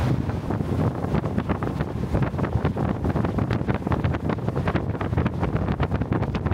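Speedboat running at speed: wind buffeting the microphone in many short gusts over the steady low drone of the boat's engine.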